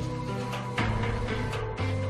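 Background music: held low notes with sharp percussive hits, the chord changing about a second in.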